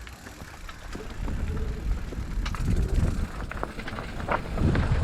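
Electric mountain bike (Ducati TK-01RR) riding over rough trail: tyre and wind rumble on the microphone that grows louder after about a second, with scattered knocks and rattles from the bike.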